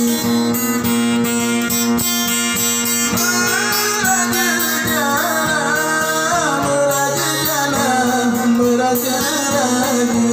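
Solo acoustic guitar in the Batanghari Sembilan gitar tunggal style, fingerpicked over a steady ringing bass drone, with a man singing a slow, bending, ornamented vocal line through the middle.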